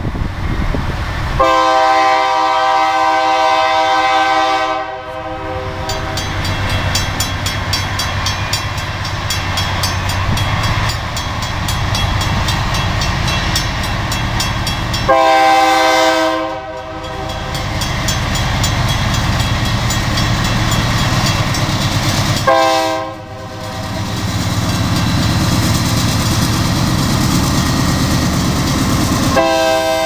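BNSF diesel freight locomotive's air horn sounding the grade-crossing signal: two long blasts, a short one, then a long one beginning near the end. Between the blasts the locomotive's diesel engine gives a low rumble that grows as the train approaches.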